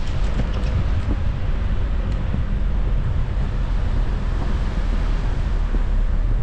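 Steady low rumble of a car driving on a snow-covered street, with wind buffeting the microphone.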